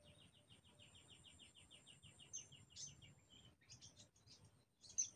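Faint bird calls: a fast run of short repeated high notes for about three seconds, then a few sharper chirps, the loudest near the end.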